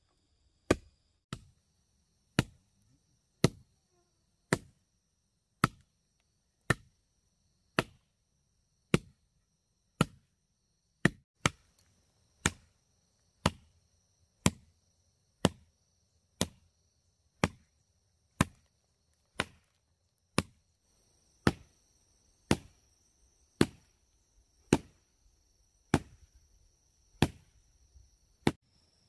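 Steady, even chopping blows from a hand tool, about one strike a second, each a sharp crack. Behind them insects buzz as a steady high whine, and a second, higher insect tone joins about two-thirds of the way through.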